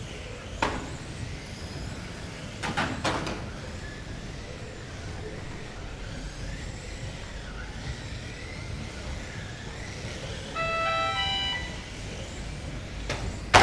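GT12 electric 1/12-scale RC cars racing on an indoor track: a steady low hum with sharp knocks of cars striking the track boards, a cluster around three seconds in and the loudest just before the end. About eleven seconds in, a short run of electronic beeps steps through several pitches.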